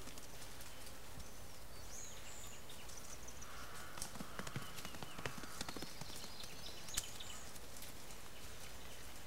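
Ring-tailed lemurs moving over dry leaf litter: scattered light clicks and crackles, with a few faint high chirps.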